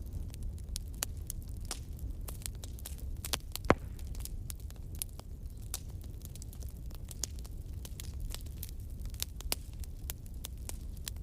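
Bonfire crackling: wood snapping and popping in quick, irregular clicks over a steady low rumble, with one sharp, louder pop a little under four seconds in.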